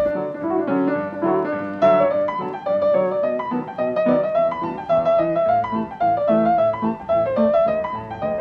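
Background music: a solo piano piece played in a quick run of notes.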